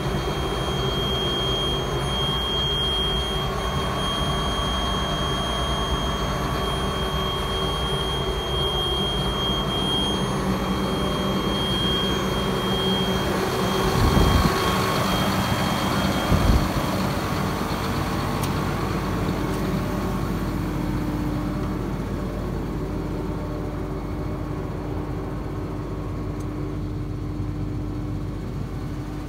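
Diesel engine of a RoGator RG1300 self-propelled sprayer idling steadily, with a thin high whine over it in the first half. Two heavy thumps come about halfway through.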